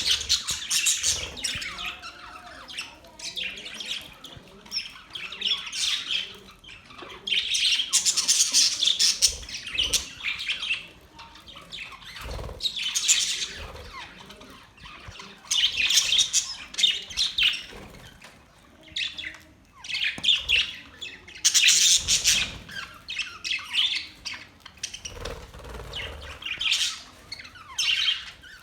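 Budgerigars chirping and chattering in dense high bursts a few seconds long, with short lulls between.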